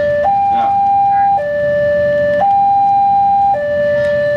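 Railway level-crossing warning alarm sounding, an electronic two-tone signal alternating steadily between a higher and a lower note about once a second, the sign that a train is approaching and the barriers are down.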